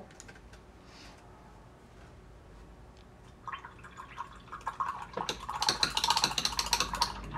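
Rapid clicking and clattering of small hard objects being handled, starting about three and a half seconds in and growing louder near the end, after a quiet start.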